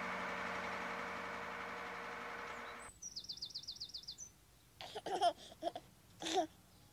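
A fire truck's engine runs steadily and cuts off suddenly about three seconds in. A quick trill of about eight rising bird-like chirps follows, then a baby giggling in two bursts near the end, the second one louder.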